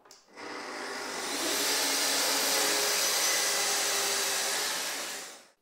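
Festool plunge-cut track saw with its dust extraction hose running steadily. It builds up over the first second, holds level, and cuts off just before the end.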